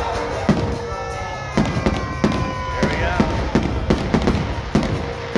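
Fireworks display: aerial shells and comets bursting in a string of sharp, irregular bangs, coming thicker after the first second and a half.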